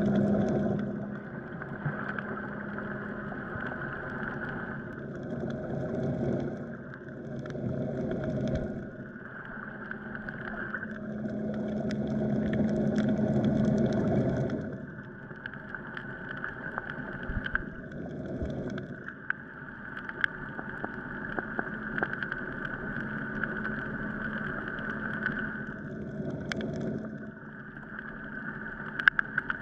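Muffled underwater sound recorded through a camera housing: a steady motor hum, like a boat engine heard through the water, swelling and fading every few seconds, with scattered sharp clicks.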